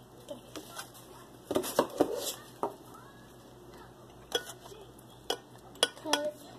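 Metal spoon scooping pudding, clinking and scraping against a stainless steel mixing bowl and a glass serving bowl: a cluster of sharp clinks about two seconds in, then single clinks spaced about half a second to a second apart near the end.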